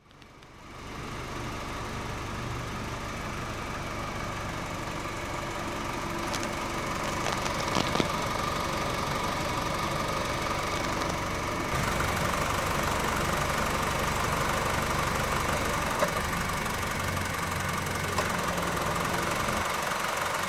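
2012 Honda Civic EX's 1.8-litre four-cylinder engine idling steadily with the hood open, running for an alternator output test that shows the alternator undercharging at under 13 volts.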